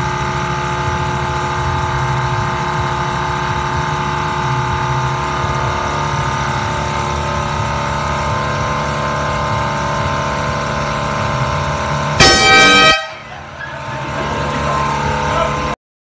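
A loud air horn blast, just under a second long and cutting off abruptly, about twelve seconds in, over a steady droning background.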